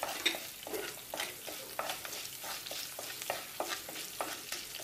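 Curry leaves sizzling in hot coconut oil with mustard seeds and cumin in a terracotta clay pot, while a wooden spatula scrapes and stirs against the pot in quick, repeated strokes.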